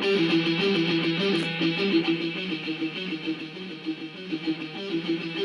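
Guitar music with a quick, repeating plucked figure, starting suddenly.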